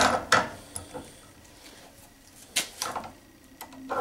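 Metal clacks of Knipex-style adjustable pliers on a nut clamped in a bench vise as the jaws are set and regripped: two sharp clacks at the start, a few lighter ticks, then another sharp clack about two and a half seconds in.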